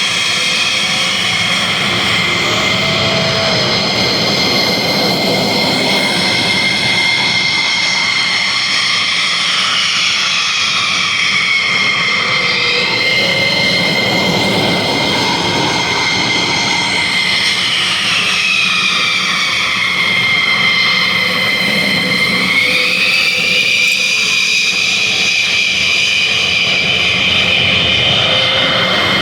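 F-16 fighter jets taxiing, their jet engines making a steady loud rumble topped by a high whine of several tones. The whine falls and rises again in pitch twice.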